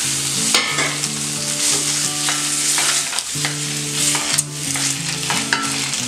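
Whole boiled eggs sizzling in hot oil and spice powder in an iron kadai, stirred and rolled around the pan with a wooden spatula, with a few knocks and scrapes of the spatula against the pan.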